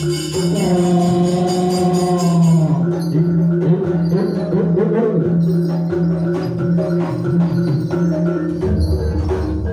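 Live East Javanese jaranan gamelan music: kendang barrel-drum strokes and gong and bell-like percussion under a held, wavering melodic line, with a deeper low tone coming in near the end.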